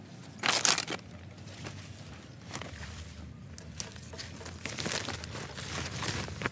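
Rustling, crackling and crunching of brush as undergrowth is pushed aside by hand in a search. There is one loud burst about half a second in, scattered rustles after it, and a longer spell of rustling near the end.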